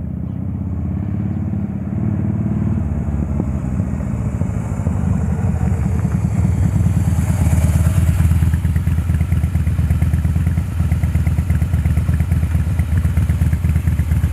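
Harley-Davidson V-twin running through Khrome Werks 3-inch slip-on mufflers, a deep low exhaust rumble that grows louder over the first several seconds and then holds steady.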